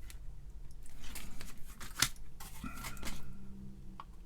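Handling noise at a workbench: a few sharp clicks, the loudest about two seconds in, and short bursts of rustling and scraping, over a low steady hum.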